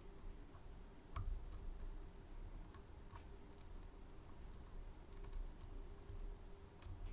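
Sparse light ticks and clicks of lock picks working the pins of a Medeco M3 6-pin lock, over low handling rumble; the sharpest click comes about a second in.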